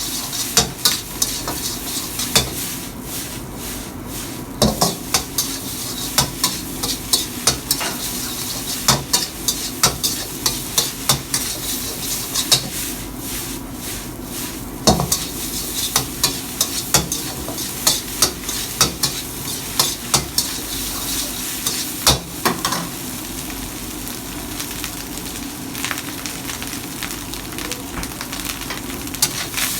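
Schezwan chicken fried rice being stir-fried in a hot pan: a steady sizzle, broken by frequent sharp knocks and scrapes of a spatula against the pan.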